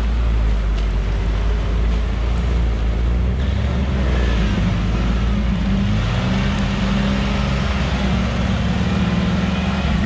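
Off-road 4x4 engine running steadily under load, its note shifting a few times as the revs change.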